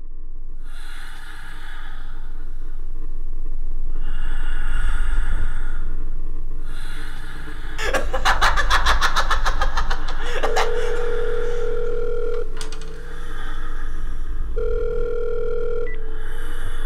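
Film sound design: a low rumbling drone under bursts of harsh, glitchy electronic noise. A rapid stutter of clicks comes about eight seconds in. Then a steady electronic tone sounds twice, about two seconds each, like a telephone ringing tone.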